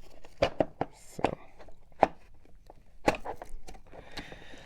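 Sharp clicks and knocks of hard plastic: a vacuum cleaner's brush roll being worked through its drive belt and into its seats in the base, about half a dozen taps with a short scrape near the end.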